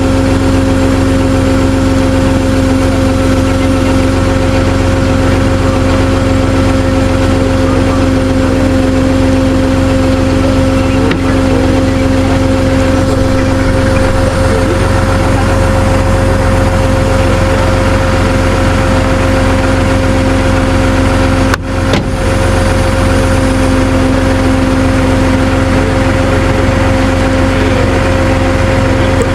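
Tow truck engine running steadily, a constant droning hum with a held tone, broken by a very brief dropout about 22 seconds in.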